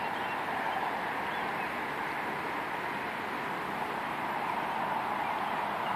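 Steady rushing of a fast-flowing river: an even hiss that neither rises nor falls.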